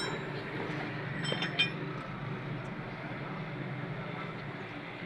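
A few short metallic clinks, one at the start and a quick cluster about a second and a half in, over a steady background noise.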